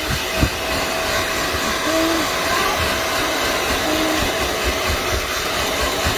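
Hair dryer blowing steadily, drying a freshly bathed kitten's fur, with uneven low rumbling underneath.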